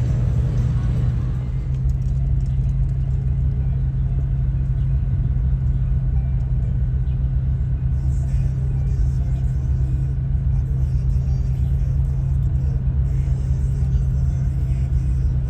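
Car engine running at a steady idle: a constant low drone that holds one pitch throughout.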